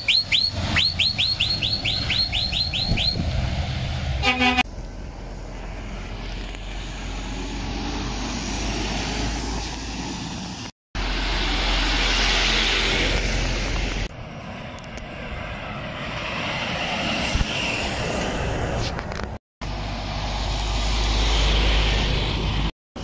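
Articulated lorries driving past close by, diesel engine rumble and tyre noise swelling as each one passes, broken by short dropouts where the takes are cut together. At the start a rapid run of high chirping toots, about five a second, and a short horn toot about four seconds in.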